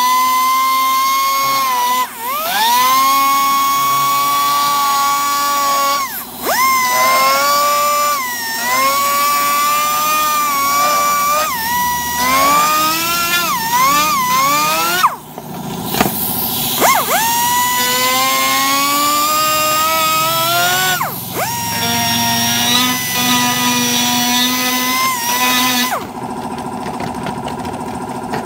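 Small high-speed rotary grinding tool whining as it cuts a groove into a plastic motorcycle side cover. Its pitch sags each time the bit bites and then recovers, and it stops and restarts several times. It stops a couple of seconds before the end, leaving a fainter steady hum.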